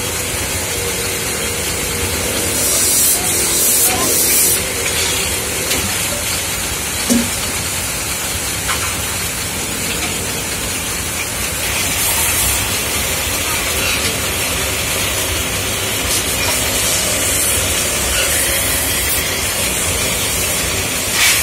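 Workshop lathe spinning an aluminium pot while a hand tool works the metal: a steady hissing machine noise over a low hum, with louder scraping stretches a few seconds in and again about halfway through.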